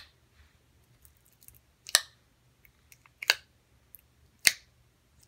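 Clear glitter slime clicking and popping as it is poured from its tub and pressed with the fingers. A handful of sharp, separate pops come about one every second or so, with faint ticks between.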